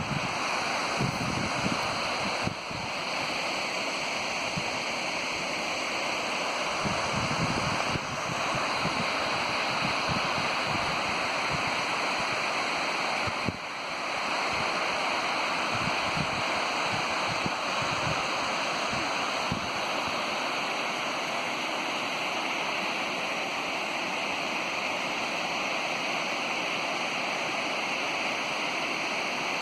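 Waterfall rushing steadily, with irregular gusts of wind buffeting the microphone.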